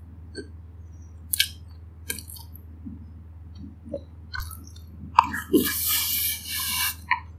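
Close-miked mouth sounds of chewing a spoonful of fried rice, with soft wet clicks and crunches. About five seconds in comes a louder, drawn-out hissing mouth sound through pursed lips that lasts nearly two seconds.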